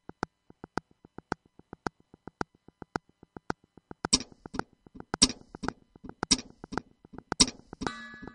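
Background music: a song's intro of steady, evenly spaced ticking percussion, with a heavier beat joining about four seconds in and a held chord coming in near the end.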